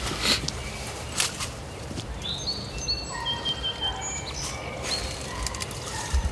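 A shot jake turkey flopping on the ground in its death throes, its wings beating the grass in sharp knocks and rustles, strongest in the first second or so. Through the middle a songbird sings a run of short, clear whistled notes.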